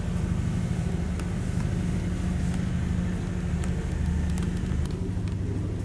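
A diesel engine on the train runs at a steady speed, giving a low hum of several steady tones with faint scattered ticks. One of the lowest tones drops away near the end.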